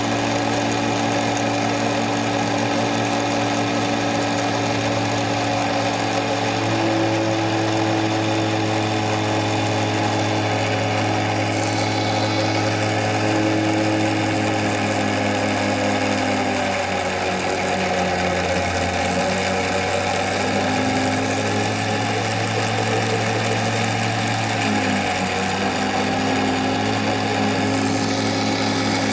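Small Proxxon electric drill running steadily while drilling a hole in wood. Its motor whine dips in pitch a couple of times, around the middle and again near the end.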